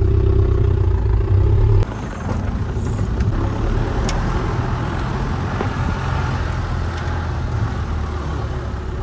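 Off-road SUV engine running: a loud, low engine hum for about the first two seconds that cuts off abruptly, then a steadier, quieter engine sound with some noise over it.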